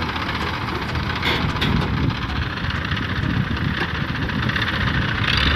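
Engine of a heavy construction machine running steadily, with a rough, low rumble.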